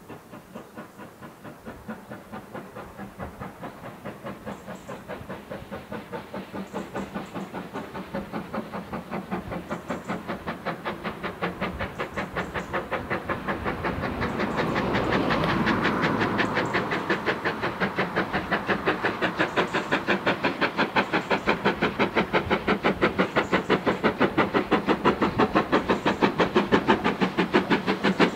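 GWR Large Prairie No. 4144, a 2-6-2 tank steam locomotive, approaching under steam, its chimney exhaust beating in a rapid, even rhythm that grows steadily louder as it nears.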